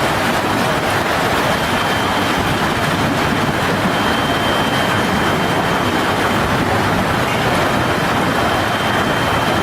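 Steady roar of a violent storm's wind and heavy rain, with a faint steady high whine running under it.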